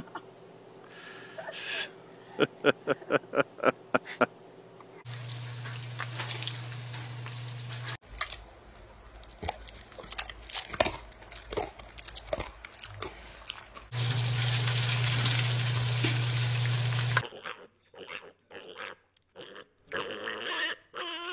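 Pigs grunting in a run of short clips spliced together, the background changing abruptly at each cut; one stretch in the middle is loud, with steady hiss.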